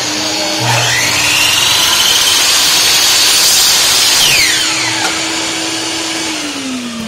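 A shop vacuum runs while a miter saw starts about a second in with a rising whine and cuts through a 3/8-inch wooden dowel rod. The saw is released after about four seconds and winds down with a falling whine. Near the end the vacuum's lower hum drops in pitch as it shuts off.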